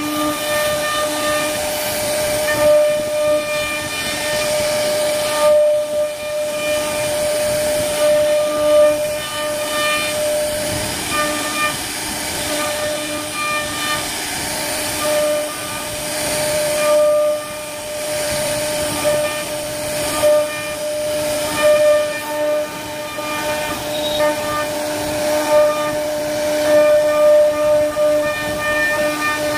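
CNC router spindle whining steadily as its bit carves into a wooden door panel, over the hiss of the cut. The pitch holds steady while the cutting noise swells and eases irregularly.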